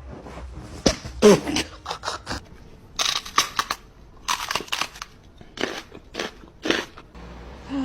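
A run of about a dozen crisp crunching or snipping sounds at an irregular pace, some in quick pairs, with a short pitched sound about a second in.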